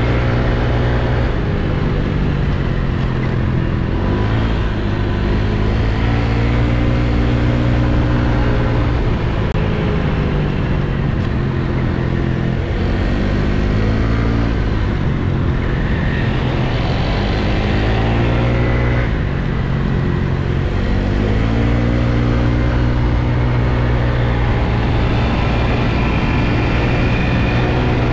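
Scooter engine running while riding, its pitch rising and falling several times as the throttle opens and closes, over a steady rush of wind and road noise.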